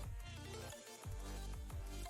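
Electronic music with deep bass notes that fall in pitch, over a busy layer of higher pitched parts.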